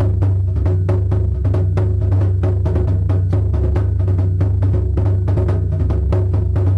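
Background music driven by a fast, steady drumbeat over a deep, constant bass.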